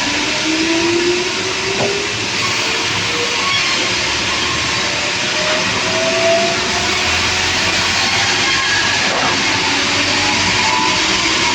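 Engine-driven saw cutting through heavy timber: a loud, steady machine noise with faint tones that slowly rise in pitch as the load changes.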